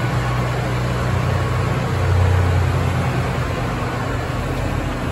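A steady low engine drone running throughout, swelling a little about two seconds in.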